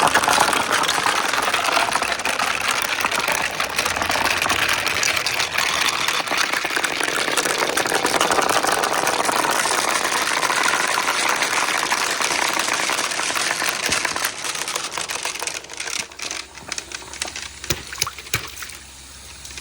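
Marbles rolling and clattering down a water marble run's track in a dense, rapid rattle that thins to scattered clicks and fades near the end.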